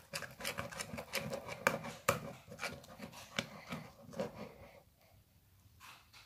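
Glue-and-laundry-detergent slime being stirred and squished, a rapid run of sticky, wet clicks and squelches that stops about five seconds in.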